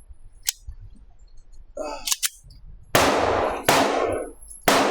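Three 9mm pistol shots from a Glock 17L Gen 5, spaced about three quarters of a second to a second apart, each followed by a long ringing echo. A sharp click comes about half a second in.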